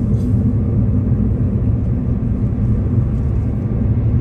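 Steady low rumble of a moving road vehicle: engine and tyre noise running evenly, with no change in pitch or level.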